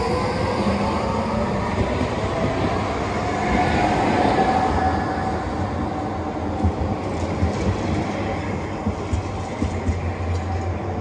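Electric tram running along street track, its drive whining and rising in pitch as it gets under way. A run of clicks and knocks from the wheels on the rails comes in the last few seconds.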